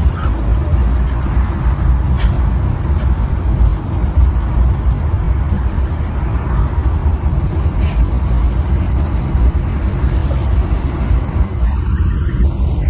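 Steady low rumble of a car on the move: engine and tyre noise heard from inside the cabin.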